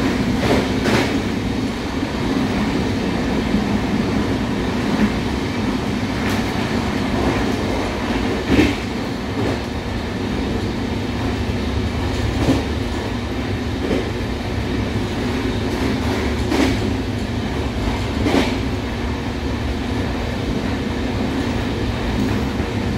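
The Deccan Express Vistadome passenger coach under way, heard from inside the coach: a steady low rumble of the wheels on the rails, with a sharp clack every few seconds at irregular spacing as the wheels pass over the track.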